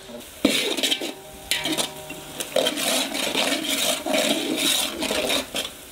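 Sliced onions frying in hot oil, sizzling and rustling in uneven bursts as a slotted metal spoon stirs them around a large metal pot.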